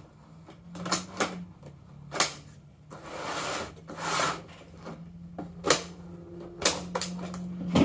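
Cutters snipping through the plastic zip ties that hold an RC truck in its packaging: a series of sharp separate snips, with a stretch of rustling around the middle.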